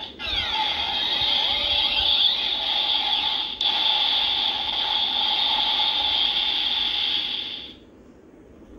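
DX Ghost Driver toy belt playing an electronic sound effect through its built-in speaker, a dense sweeping sound while its eye lights change colour. A click comes about three and a half seconds in, and the sound stops shortly before the end.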